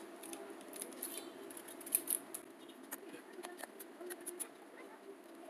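Scattered small clicks and crackles of a plastic pry tool working under the cracked screen of a Xiaomi Mi A1 as the display is separated from its frame, the adhesive holding it tight. The clicks come in clusters about two seconds in and again over the following couple of seconds.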